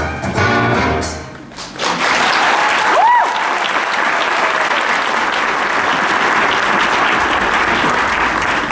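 Brass-led show music ends about a second in, then an audience applauds steadily, with a short whistle about three seconds in.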